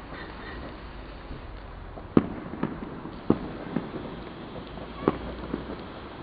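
Fireworks going off: six sharp bangs in three pairs from about two seconds in, each bang followed by a fainter one about half a second later.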